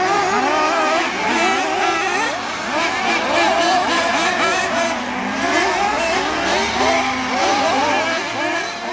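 Several nitro-powered radio-controlled off-road cars racing together, their small engines revving up and down in quick, overlapping rises and falls.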